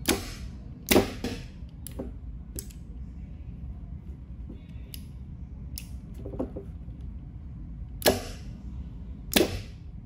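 Sharp, irregularly spaced mechanical clicks from two roller-lever limit switches being worked by hand, and from the magnetic contactor they feed in series clacking in and dropping out. There are about nine clicks, some in quick pairs.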